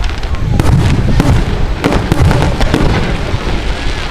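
Fireworks display: a rapid series of sharp bangs from bursting shells, about every half second, over a continuous low rumble.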